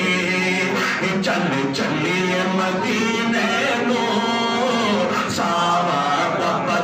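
A man singing a devotional Urdu kalam (naat), drawing out long, wavering held notes.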